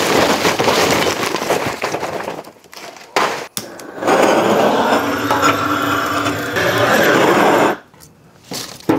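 Charcoal poured and rattling from a bag into a steel smoker firebox, then a hand-held gas torch roaring steadily for about four seconds as it lights the fuel, cutting off sharply. Near the end a short knock as a wood split is set down on the steel.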